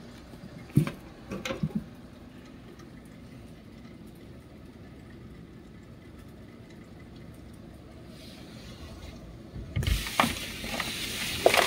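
Faint, steady hiss of tyres on a wet street, swelling to a loud hiss near the end as a vehicle passes; a few short clicks about a second in.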